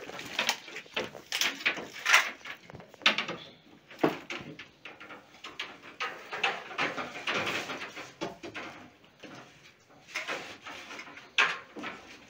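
PEX plastic pipe being pulled off its coil on a rotating stand: uneven scraping and rustling as the pipe slides off the coil and over its plastic wrap, with short sharp clacks.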